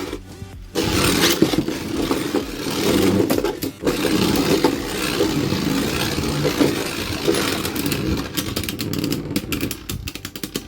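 Two Beyblade spinning tops launched into a plastic stadium, grinding and scraping across the floor as they spin and hit each other. Near the end the collisions become a fast run of sharp clicks and clatters.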